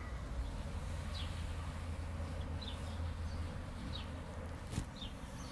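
Outdoor ambience: a steady low rumble with short, faint bird chirps repeating about once a second, and a single click near the end.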